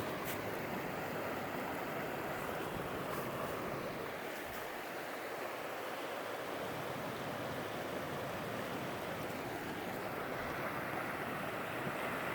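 Water pouring steadily over a beaver dam's rock wall in small waterfalls, an even rushing sound.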